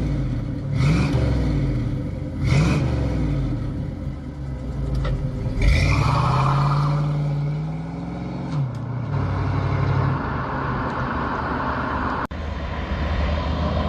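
1969 Ford Mustang's exhaust as the engine is blipped twice, then revved up and held for a couple of seconds about six seconds in, before it drops back to a steady idle.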